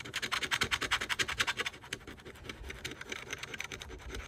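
A coin scraping the coating off a scratch-off lottery ticket in quick back-and-forth strokes, about ten a second, lighter in the second half.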